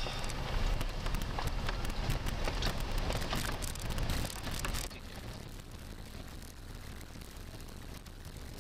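Road noise heard from inside an SUV driving a rough gravel track: a steady low rumble with many small clicks and rattles from stones and the cabin. About five seconds in, the noise drops to a softer, smoother rumble.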